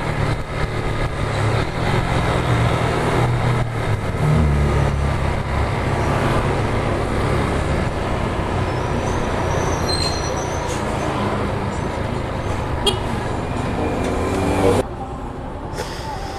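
Honda motorcycle engine running while riding, heard over wind on the microphone, its note stepping down about four seconds in. Near the end the engine sound drops suddenly to a quieter level as the throttle is closed.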